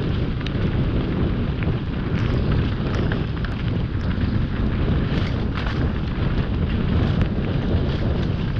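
Wind rushing over a helmet-mounted GoPro's microphone during a fast mountain-bike descent, a steady low rumble, with tyres rolling on a dirt trail. Short clicks and rattles from the bike are scattered through it.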